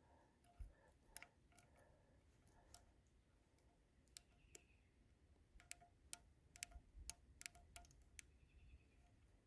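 Faint, scattered metallic clicks and light tinks of small metal parts and tools being handled on a flintlock muzzleloader, some ringing briefly. They come more thickly in the second half.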